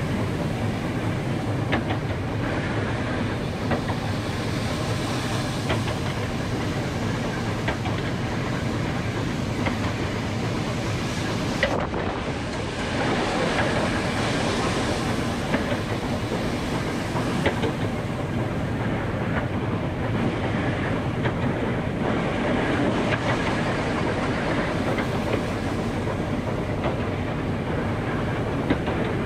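Steam train running along jointed light-railway track: a steady rumble of wheels on rails, with occasional sharp clicks as the wheels cross rail joints. The locomotive is a Hunslet Austerity 0-6-0 saddle tank.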